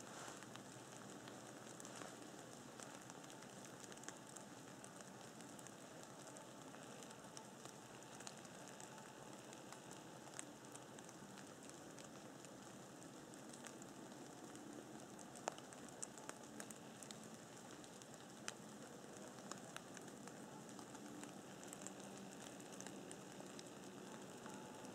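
Near silence: a faint steady hiss with scattered soft ticks.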